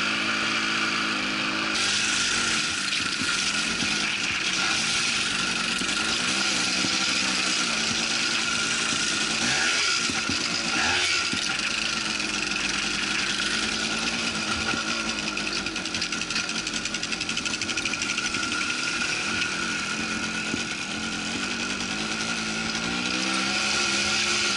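Quad bike engine running as it is ridden, its pitch rising and falling with the throttle, over a steady hiss.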